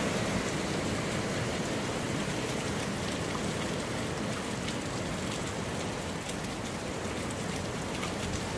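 Steady hurricane rain and wind, an even rushing hiss without breaks.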